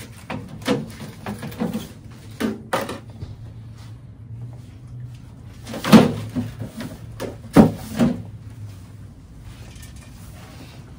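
A series of knocks and clatters as objects are put away into a small bedside cabinet and its drawer, the loudest knock about six seconds in and two more shortly after.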